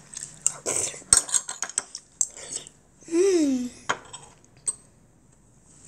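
Metal spoon clinking and scraping against a ceramic bowl while eating, with a run of sharp clinks in the first few seconds and two more later. About three seconds in, the child's voice sounds briefly, falling in pitch.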